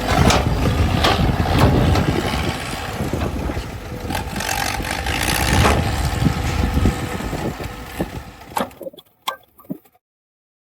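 Heavy construction machinery engine running with clatter and knocks, thinning out about seven seconds in to a few sharp knocks before the sound cuts off into silence near the end.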